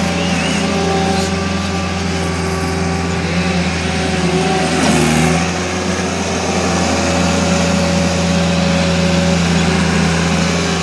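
Caterpillar skid-steer loader's diesel engine running steadily close by while the machine maneuvers, with a brief change in the engine note and a swell in loudness about halfway through.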